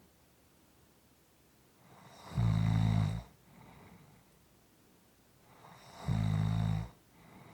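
A person snoring: two loud low snores, each just under a second long and about four seconds apart, with soft breathing between them.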